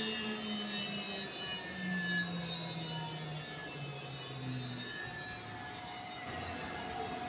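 CNC router humming, its tone stepping down in pitch over about five seconds, with faint high whines above.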